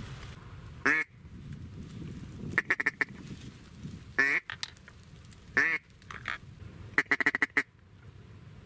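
Duck call blown in mallard-hen quacks to draw ducks in to the decoys: single loud quacks and quick runs of several quacks, with pauses between.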